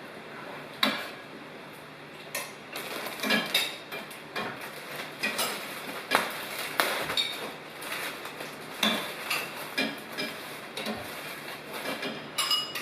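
Tableware clinking at a meal: irregular clicks and knocks of utensils against plates and bowls, coming every second or so.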